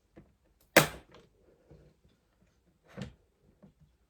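A DDR5 RAM stick being pressed into a motherboard memory slot, with one sharp click about a second in as it seats and the slot's retention latch snaps shut, and a smaller knock near the end.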